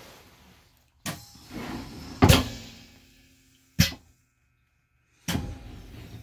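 Pneumatic feed and vise of a Tormach AF50 autofeed bandsaw cycling on restart: four sharp clunks about a second and a half apart, the second the loudest, as the bar is pushed forward and clamped before the cut.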